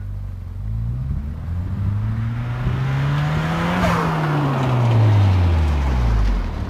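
Toyota Celica GT-Four ST205, with its turbocharged 3S-GTE engine and de-cat full exhaust, driving past. The engine note climbs in pitch for about three seconds as the car approaches, then drops steadily as it goes by and pulls away.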